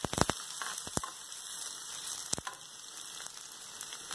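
Chopped onion, scallion and garlic sizzling in cooking oil in a nonstick frying pan over a low flame. A plastic spoon stirring them clicks against the pan a few times at the start, again at about one second and once more at about two and a half seconds.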